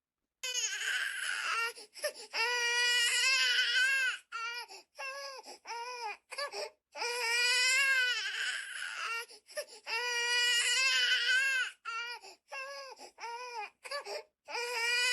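Recording of an infant crying, played back: a string of wailing cries, each one to two seconds long with short breaks for breath between them.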